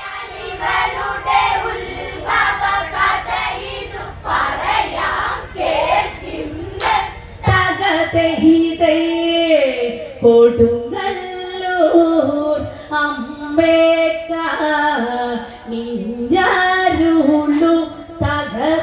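Women singing a Malayalam Onamkali folk song together in high voices, with a few hand claps.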